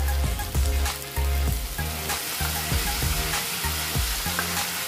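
Chicken, onion and capsicum sizzling in hot oil in a kadhai as soy sauce is poured in, with faint clicks from stirring. Low background music runs underneath.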